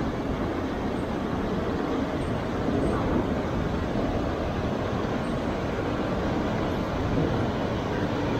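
Steady rumble and rush of a small boat under way on a river, with no pauses or changes.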